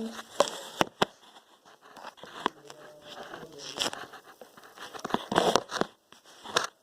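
Slime being squeezed and stretched by hand, giving irregular sticky pops and crackles.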